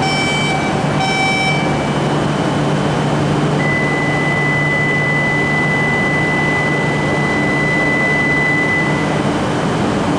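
Shinkansen station platform sound: a steady low hum from the standing train, a brief broken chime in the first second or so, then a single steady high-pitched beep held for about five and a half seconds from about three and a half seconds in.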